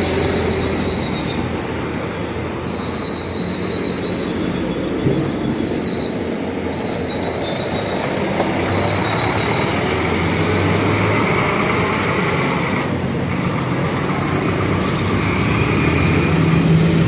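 Scania K360iB diesel bus pulling out and driving off, its engine running under load. A high shrill tone sounds in short stretches, on and off, during the first half.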